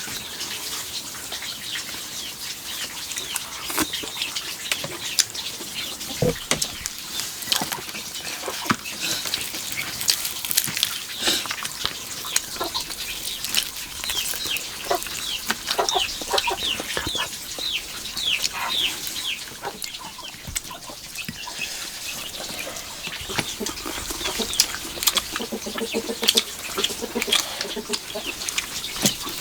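Chickens clucking, with many short, high falling peeps and scattered clicks and taps throughout.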